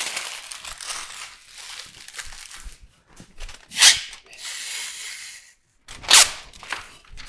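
Masking paper being handled and torn: rustling and crinkling paper, with two sharp rips, the first just before four seconds in and the second about six seconds in.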